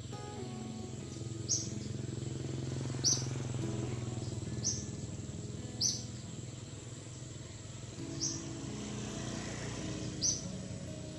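Short high chirps repeating about every one and a half seconds, over a steady low hum and held low tones.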